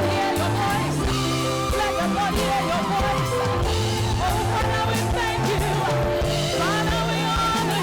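Live worship band playing, with bass, guitar and drums under a sung melody.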